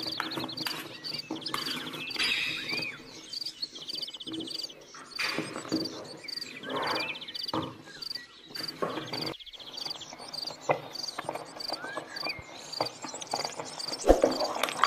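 Wooden spatula stirring and knocking in an aluminium pot of milk payasam, with scattered clicks and a louder knock near the end. Behind it, an insect keeps up a regular high chirping, with occasional short bird chirps.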